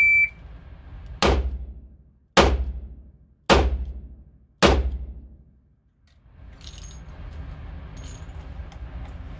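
Shot timer's start beep, then four revolver shots fired about a second apart, each ringing out with a long echo in the indoor range. A few faint metallic clicks follow near the end.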